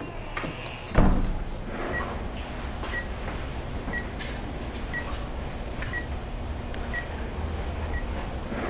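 Philips fetal heart monitor picking up the baby's heartbeat: a steady low pulsing whoosh from the Doppler probe, with a short electronic beep about once a second. A loud thump about a second in, as the sound starts.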